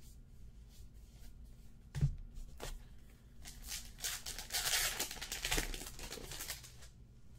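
Plastic wrapper of a 2017 Topps Archives Baseball card pack crinkling and tearing open for about three seconds from midway. Before that, a single sharp thump about two seconds in.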